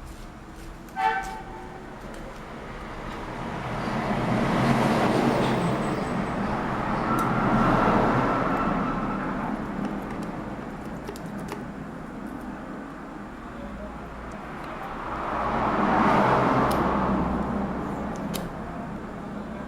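Road traffic passing, its noise swelling and fading three times, with a short horn toot about a second in.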